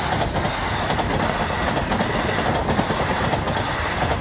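InterCity 125 High Speed Train's Mark 3 coaches passing at speed close by: a steady rush of rolling wheels and air, with the clack of wheels over the rail joints.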